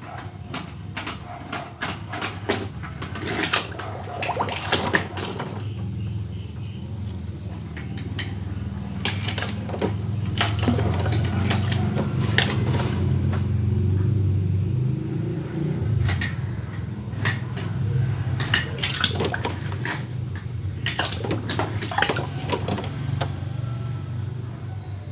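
Die-cast toy cars clinking and clattering against each other and a hard ledge, in quick clusters of sharp clicks, with occasional splashes as they drop into water.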